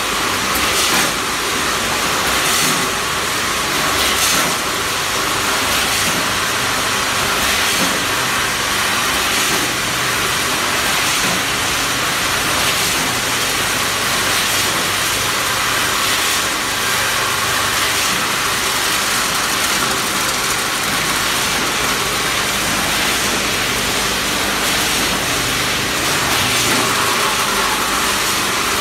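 Vertical packing machine and multihead weigher line running: a steady, loud mechanical noise dominated by hiss, with a faint hum underneath.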